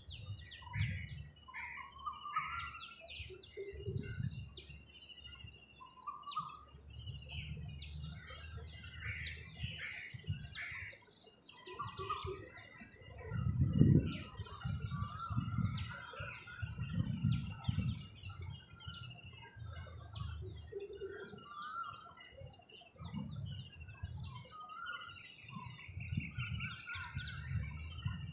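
Dawn chorus of many birds chirping and trilling over one another, with low rumbles coming and going underneath, the loudest about halfway through.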